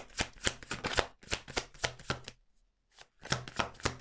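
Deck of tarot cards being shuffled by hand, overhand style, with quick soft card slaps about four to five a second. The shuffling stops for under a second a little past halfway, then resumes.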